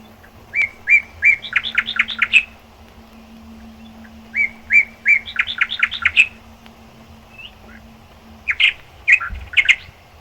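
A songbird singing three phrases a few seconds apart. Each phrase opens with a few even, evenly spaced notes and runs into a fast string of chirps.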